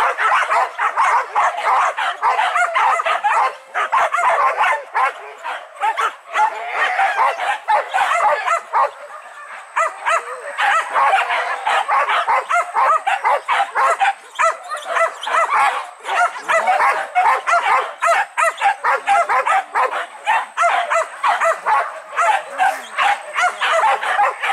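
A pack of boar-hunting dogs barking and yelping without pause, many voices overlapping in quick succession as they give chase.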